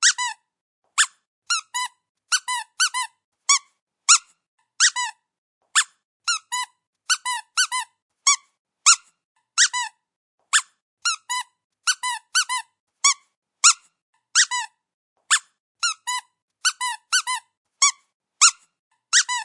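Dog's squeaky toy squeezed again and again: short high squeaks, some single and some in quick pairs or triples, each bending in pitch, with brief silent gaps between.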